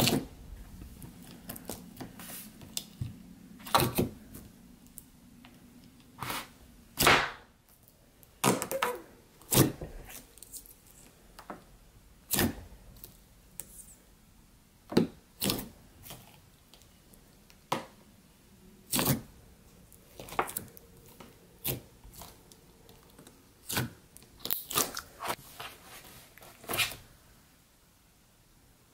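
Thick peppermint bark boba slime being poked and pressed by fingers. It gives short, sharp pops and crackles at irregular intervals, a few seconds apart or in quick pairs.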